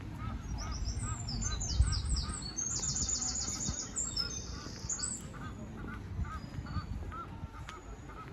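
Birds calling: a short call repeated steadily about two to three times a second, joined for the first five seconds or so by a small songbird's high, rapid twittering, over a low background rumble.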